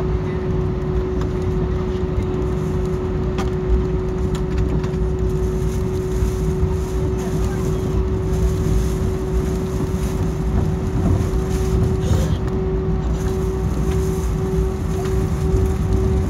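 Jet airliner's cabin noise while taxiing, heard from a seat over the wing: steady engine and airflow rumble with a steady hum tone that begins to pulse near the end.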